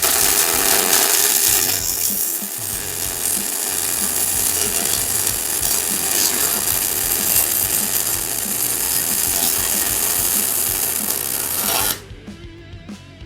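Welding arc crackling steadily and harshly for about twelve seconds, then cutting off abruptly.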